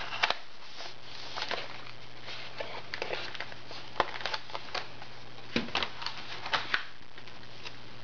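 Irregular light taps, clicks and rustles from hands handling a cardboard box of Crayola Super Tips washable markers, about a dozen scattered strokes over a faint steady low hum.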